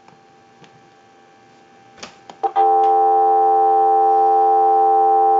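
A few clicks, then about two and a half seconds in a loud, steady telephone dial tone starts and holds. It comes from the payphone handset's receiver and is picked up by an amplified telephone pickup.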